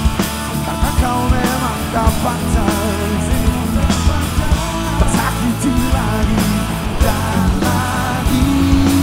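Rock band playing live at full volume: drums on a Tama kit, electric guitar, bass guitar and keyboards, with a male lead vocal singing over them.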